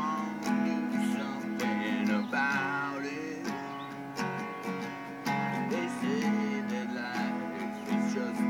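Music led by a strummed guitar, with a melody line that bends in pitch over the chords.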